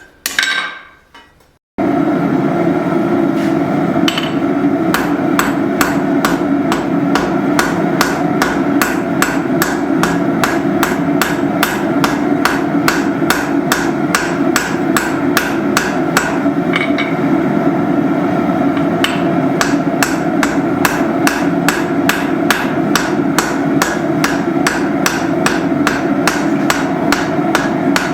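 Blacksmith's hand hammer peening a rivet on the anvil to set the pivot of a pair of forged tongs, the rivet worked at a dull, darker heat. After a few strikes and a brief pause, steady blows come about three a second over a continuous roar.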